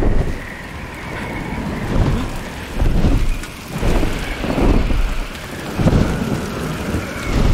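Film soundtrack of a violent thunderstorm: heavy, driving rain with deep rolling thunder, the rumble swelling and easing every second or two.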